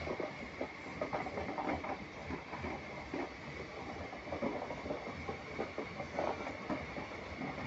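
Passenger train coaches rolling past at close range: a continuous rumble with dense, irregular clattering of wheels on the rails, and a thin steady high-pitched tone over it.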